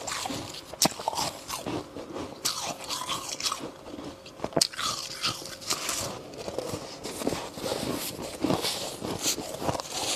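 Close-miked biting and chewing of powdery freezer frost, crunching and crackling, with a gloved hand scooping through the frost. Several sharp crisp cracks stand out among the crunching.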